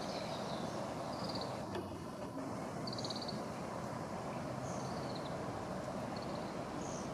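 Outdoor garden ambience: a steady background rush, with small birds chirping in short high calls every second or so, one of them a quick trill about three seconds in.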